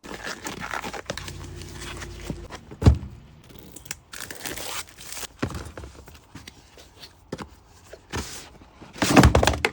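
Packaging being handled during an unboxing: a box opened and plastic wrapping rustling and tearing, with clicks and knocks as parts are taken out. There is a sharp thump about three seconds in and a loud rustling burst near the end.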